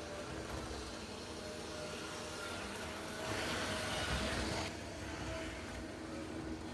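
HO-scale model train running on the layout's track: a steady hum from its small electric motor with wheel-on-rail rumble, getting louder and hissier for about a second and a half a little after the middle.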